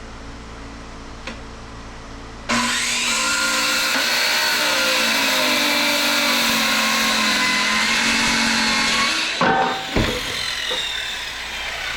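Corded power saw with a carbide blade cutting into cast aluminium, starting abruptly about two and a half seconds in with a loud screech full of shifting ringing tones. The cut stops about nine and a half seconds in with two sharp knocks, and quieter noise follows.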